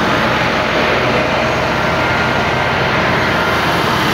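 Massey Ferguson tractor diesel engines running steady under heavy load, straining to push a loaded trolley that is bogged down in wet ground.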